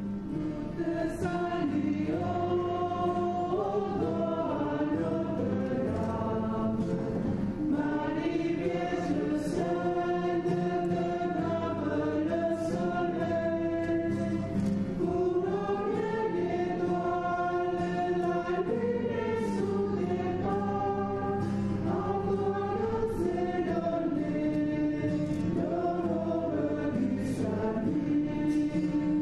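Background music: a choir singing a slow melody in long held notes over a steady low drone.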